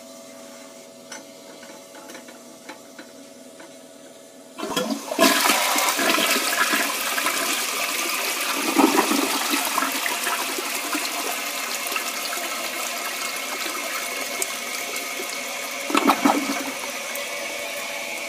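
A 2002 Crane Plumbing Galaxy toilet flushing: after a faint steady hum, the flush starts suddenly with a clunk about four and a half seconds in, then loud rushing, swirling water, with a louder gurgling surge near sixteen seconds.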